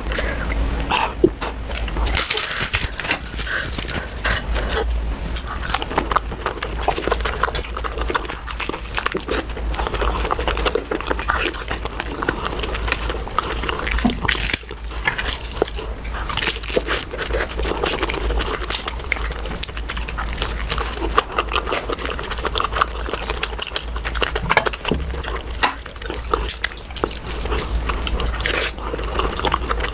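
Close-miked eating of puri with mutton curry: continuous wet chewing, lip-smacking and slurping, irregular and unbroken, over a steady low hum.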